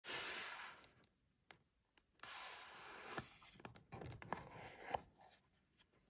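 Cardboard knife box being opened and handled: the lid and sleeve rubbing and sliding against the box in two long stretches, with scattered light taps and clicks of the packaging.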